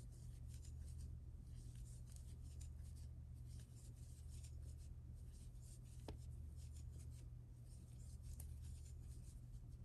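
Faint scratching and rustling of yarn being worked with a crochet hook, stitch after stitch of single crochet, over a steady low hum.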